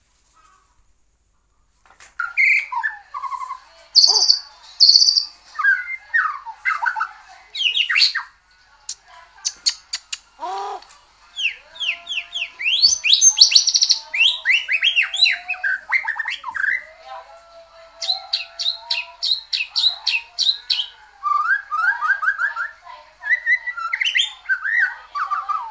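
White-rumped shama (murai batu) in full song, starting about two seconds in. It sings a long, varied stream of loud whistled phrases, quick runs of rising notes and fast repeated trills.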